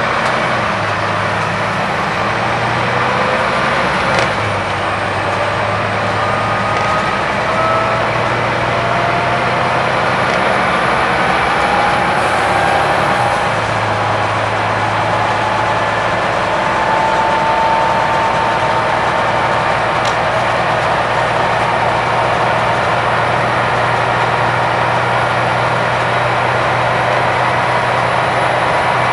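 Volvo B9TL double-decker bus heard from the upper deck, its diesel engine pulling hard under acceleration. A whine climbs steadily in pitch over the first half, and the engine note drops out briefly about four seconds and about thirteen seconds in, with a short knock near the first break.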